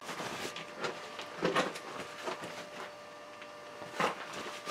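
Metal handling noises as a freshly cut gear is taken off the milling machine and handled: irregular clicks, knocks and scrapes of metal parts and tools, with louder knocks about one and a half seconds and four seconds in.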